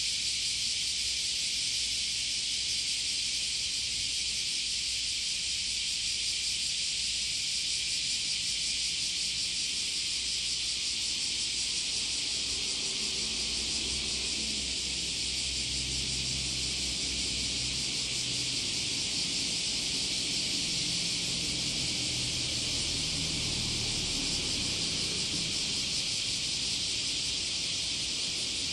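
A steady, even high-pitched hiss, with a faint low rumble coming and going from about twelve seconds in.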